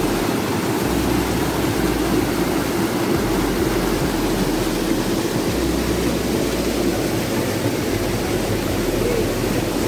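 Loud, steady rushing of water pouring over rocks in a small river cascade.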